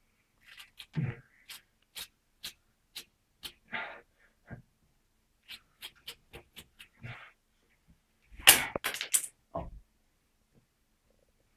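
Brushing long synthetic wig hair: a series of short, sharp swishing strokes, about two a second, with a few longer rustling strokes between them. About eight and a half seconds in comes a louder, brief burst of rustling and knocking.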